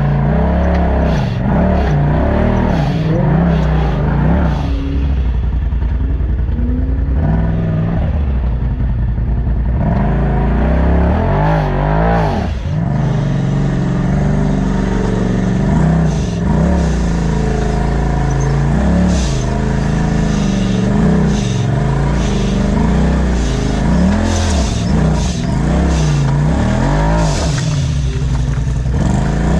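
Off-road side-by-side (UTV) engine revving up and down over and over as the throttle is worked on and off, its pitch rising and falling every second or two as the buggy picks its way up a steep rocky climb.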